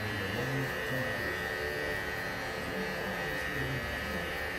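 Electric hair clippers buzzing steadily as they cut close on a low fade.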